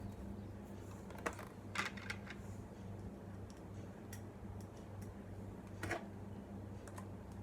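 A few sharp, scattered clicks and taps of a screwdriver and small screws as a laptop drive caddy is screwed onto a SSD, over a steady low hum.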